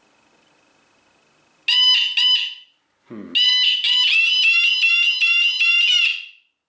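DataTool Demon motorcycle alarm siren sounding: two short electronic chirps, a low thud, then about three seconds of a loud, rapidly warbling siren that cuts off suddenly.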